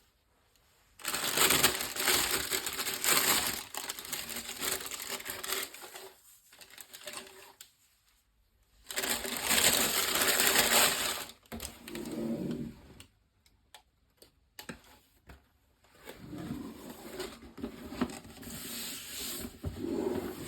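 Paper packaging of a sneaker box rustling and crinkling as it is handled and unwrapped. It comes in three long spells, with a few short clicks and knocks and quiet gaps between them.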